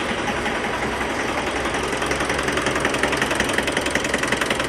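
Mitsubishi 4D56 four-cylinder diesel idling roughly, with a steady knocking and rattling clatter and engine vibration. This is a symptom of a fuel supply pump fault, diagnosed as code P1275, alongside slow starting.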